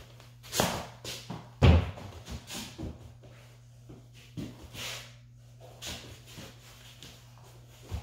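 Scattered thuds and taps of a small soft ball being kicked and landing on a hardwood floor, with feet stepping and shuffling; one heavy thud near two seconds in is the loudest.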